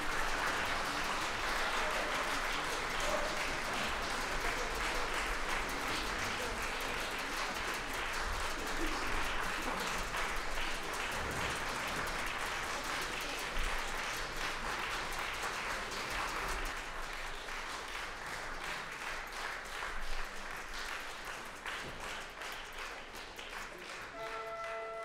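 Concert-hall audience applauding steadily, the clapping easing slightly toward the end. Right at the end a pitched tone briefly sounds.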